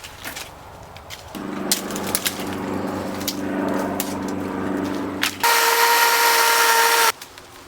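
Power saw cutting branches: it starts about a second and a half in and runs steadily. Near the end a much louder, higher-pitched stretch of about a second and a half stops abruptly.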